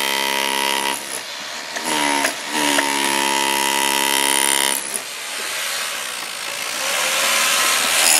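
Electric power tool working on the old pool coping, used to strip old concrete off the stones: a steady motor whine that sags in pitch and recovers about two seconds in. It stops near five seconds and gives way to a noisier whir that grows louder toward the end.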